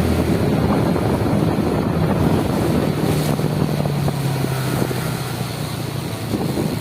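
A vehicle engine running steadily while on the move, with wind buffeting the microphone.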